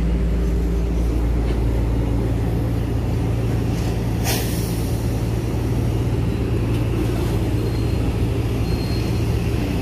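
Steady low drone of a ship's engine running while the vessel is unmooring. A brief sharp noise cuts in about four seconds in.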